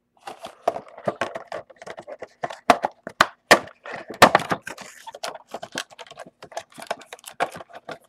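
Trading card packs, cards and the card box being handled: a dense run of crinkles, clicks and taps, with a few sharper knocks near the middle.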